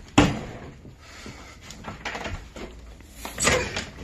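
A sharp knock, then the clatter and rustle of someone moving through a house, with a door opening about three and a half seconds in.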